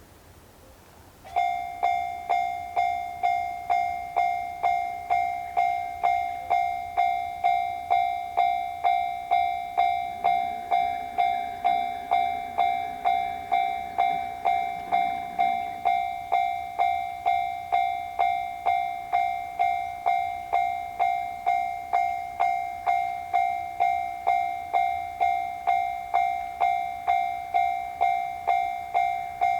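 Japanese railroad crossing's electronic warning bell (the 'kan-kan' signal) starting about a second in and ringing steadily at about two strikes a second: the crossing is active and warns that a train is approaching.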